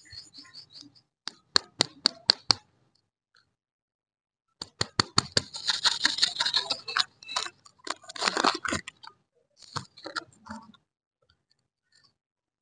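Lollipop wrapper being crinkled and peeled off by hand. A quick run of about six sharp crackles comes about a second in, then a few seconds of dense crinkling, and a short last bout near the end.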